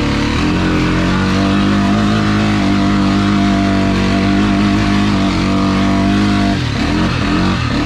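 Honda ATV engine running at a steady pull on the trail. About six and a half seconds in, its note dips and wavers briefly, then steadies again.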